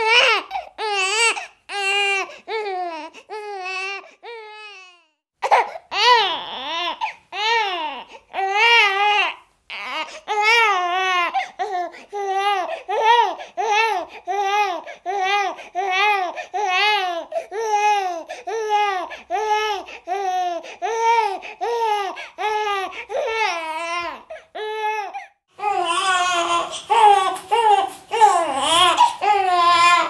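Newborn baby crying in a steady run of short, rhythmic wails, about two a second, broken by brief pauses for breath. Near the end the cries turn harsher and louder.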